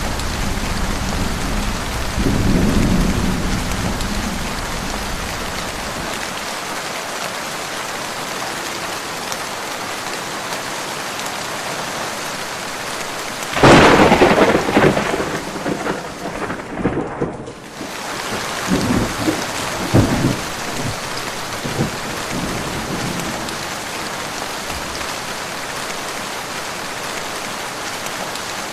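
Heavy steady rain with thunder: a low rumble in the first few seconds, then about halfway through a sudden sharp thunderclap that crackles and rumbles on for several seconds.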